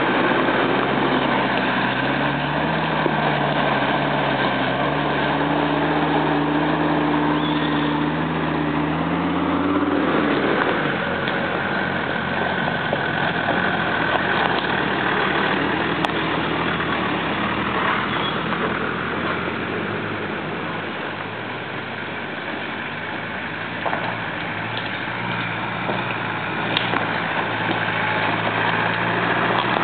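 Engines of 4x4 off-road vehicles, Land Rover Defenders among them, running at low speed as they crawl along a rough dirt track. The engine note climbs slowly for about ten seconds, then drops and stays fairly steady.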